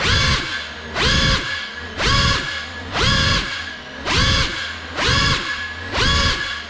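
Geprc CineLog 35 FPV quadcopter's brushless motors revving up and back down about once a second, a rising whine that holds briefly and then falls, over and over as the throttle is pumped.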